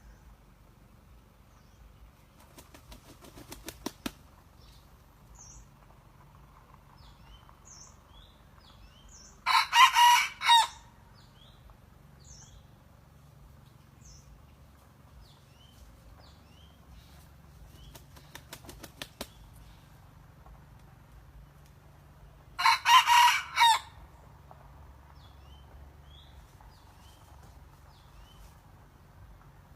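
Young decoy junglefowl rooster practising its crow: twice a quick rattle of wing-flapping builds up, and some seconds later comes a short, loud crow of a little over a second. Faint chirps of small birds sound between them.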